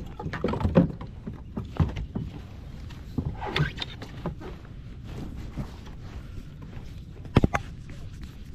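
Irregular knocks and clatter of a landing net and gear handled against a fishing kayak's hull, with a brief rustle about three and a half seconds in and a sharp double click near the end.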